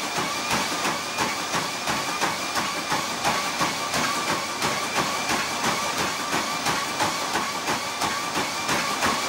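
A runner's shoes striking a NordicTrack treadmill belt, about three footfalls a second, over the steady whine of the treadmill's motor.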